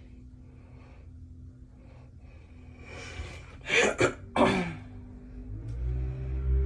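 A woman's breath: a rising breath in, then two short, forceful bursts of breath about half a second apart, midway through. A low steady hum comes in near the end.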